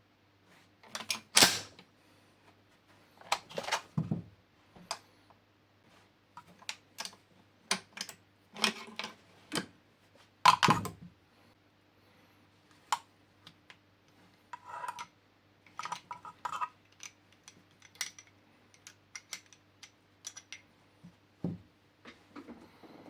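Metal parts of a Swiss K11 straight-pull rifle being handled during disassembly: irregular clicks, clacks and knocks, with two louder knocks and a few short ringing clinks.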